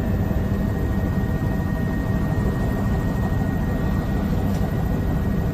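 A steady low mechanical rumble with a thin, steady whine above it.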